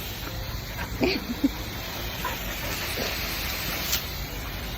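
Steady hiss of water spraying from a garden hose, with a few faint short dog sounds over it.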